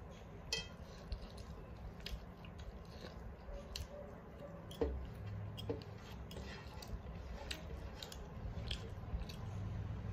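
Close mouth sounds of someone chewing a mouthful of rice and curry eaten by hand, with scattered small clicks, fingers scraping a steel plate and a couple of sharper knocks.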